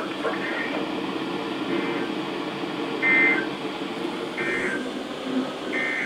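Weather-radio receiver hissing through a gap of dead air between broadcast messages, with four short electronic beeps about a second and a half apart, the second one loudest.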